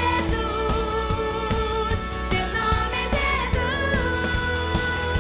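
Christian children's worship song: a sung melody over a pop band with a steady beat.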